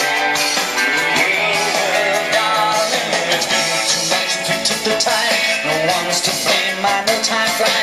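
A pop song with guitar, playing back from a cassette tape on a Sanyo RD 5372 three-head cassette deck.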